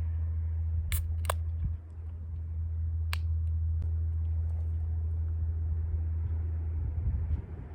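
A steady low hum that stops shortly before the end, with three sharp clicks about one second, a second and a third, and three seconds in.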